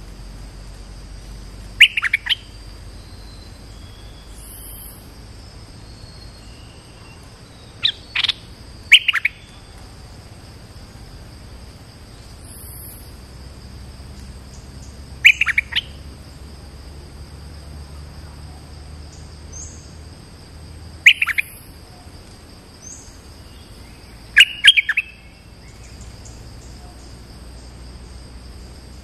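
A bulbul (นกดอกแตง, merbah lekir) gives six short, loud, sharp chirping phrases a few seconds apart, calling as a caged decoy to draw in wild birds of its kind. A steady high insect drone runs underneath.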